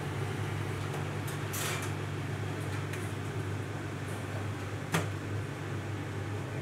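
Steady low hum and hiss of a commercial kitchen with a gas burner lit, with a brief rattle about one and a half seconds in and one sharp knock about five seconds in.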